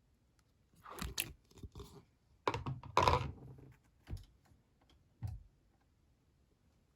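Slime being squished and pressed by hand, giving short bursts of crunchy crackling. The loudest burst comes about three seconds in, and single short crackles follow near four and five seconds.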